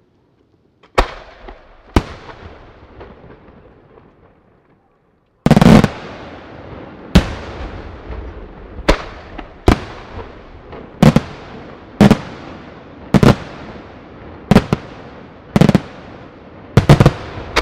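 Aerial firework shells bursting. Two sharp bangs about a second apart, then a short lull, then a loud cluster of bangs followed by a steady run of single bangs about one a second, each dying away in an echo.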